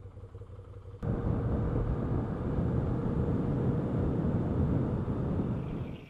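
Moto Guzzi V7 II Stone's air-cooled V-twin on the move, with wind noise on the helmet-mounted mic. There is a low rumble at first, then a sudden jump about a second in to loud, steady engine and wind noise that drops away at the very end.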